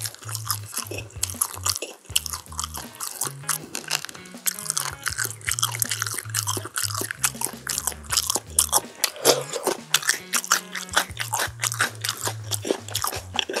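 Close-miked crunching and chewing of crispy oven-roasted chili-pepper chicken, with many sharp crunches, over background music.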